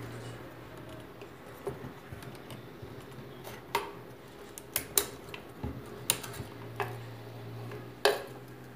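Irregular sharp plastic clicks and small knocks as an electric kettle's thermostat control unit is unclipped from its plastic tabs and pried out by hand, over a faint low hum.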